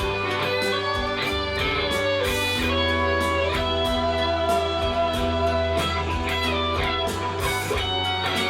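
Electric guitar improvising lead lines with bent notes over a backing track with bass and drums, in B minor.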